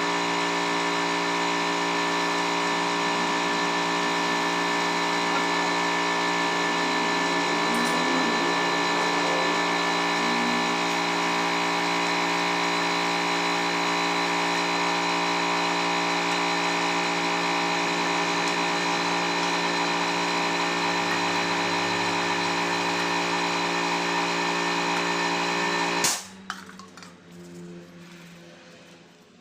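Electric power tool motor running steadily at one speed, then switched off about 26 seconds in.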